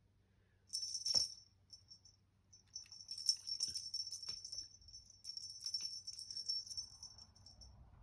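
A small bell jingling in irregular shakes, with light taps and knocks among them, as a cat plays. There is a short burst about a second in, then longer spells of jingling that stop near the end.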